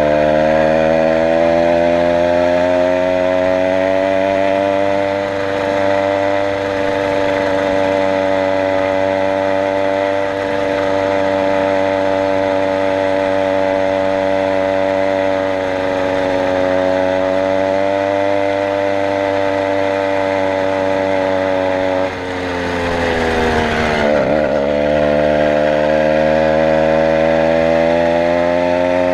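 Stock motorized bicycle's two-stroke engine running under way, a loud steady note. About 22 seconds in the note falls briefly, then climbs back up as it picks up speed again.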